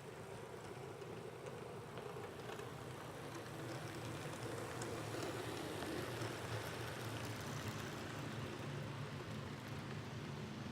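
HO-scale model train running on its track: the Athearn Blue Box GP7's electric motor and gearing hum steadily along with the rolling wheels of the cars, growing a little louder over the first several seconds.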